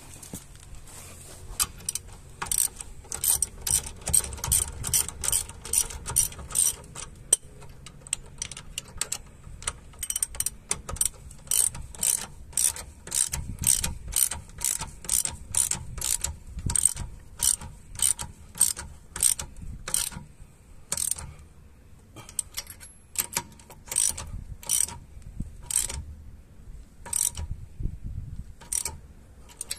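Hand ratchet wrench clicking as it runs a lug nut onto a wheel stud, tightening a temporary wheel in place. The clicks come in a steady run of about two a second, faster for a stretch near the start, with a few short pauses.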